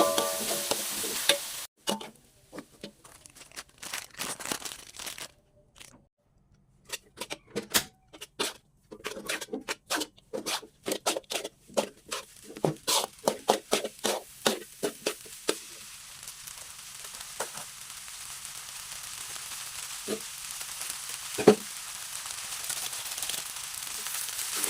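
Food frying in a pan while a utensil stirs it, giving a run of quick clicks and knocks against the pan; in the second half a steady sizzle slowly grows louder, with a couple of louder knocks.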